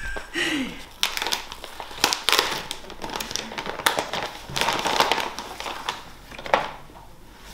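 Gift wrapping rustling and crinkling as a present is unwrapped by hand, in irregular bursts that fade near the end.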